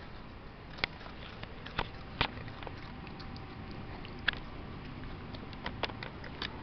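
A handful of faint, sharp clicks and taps at uneven intervals, about six in all, over a low steady background hum.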